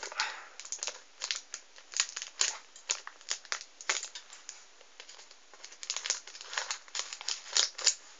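Packaging wrapper crinkling and crackling in irregular bursts as a pack of card sleeves is unwrapped by hand. The crackling eases for a moment about five seconds in.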